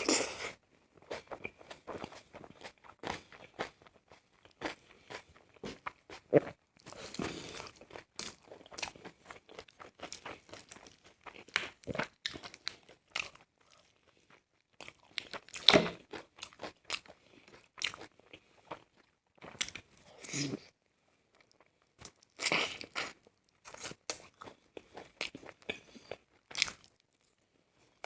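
Close-up eating sounds: a person chewing and biting into a chicken leg piece, with irregular crunches and mouth clicks and a few louder bites spread through.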